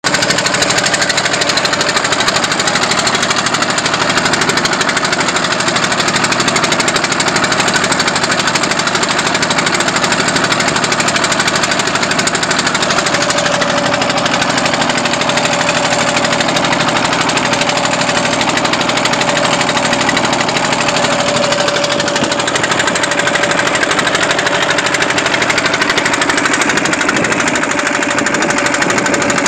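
A boat's engine running steadily at constant speed with a loud, fast, even beat. A steady mid-pitched whine joins in about halfway through.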